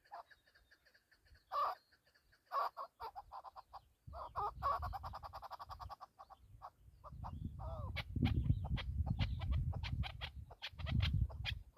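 Chukar partridge calling: series of rapid clucking 'chuk' notes, bunched in fast runs. A low rumble lies underneath in the second half.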